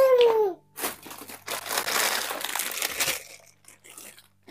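Plastic wrappers and toys crinkling and rustling as they are rummaged through, densest for about a second and a half in the middle. A brief falling squeal opens it and is the loudest sound.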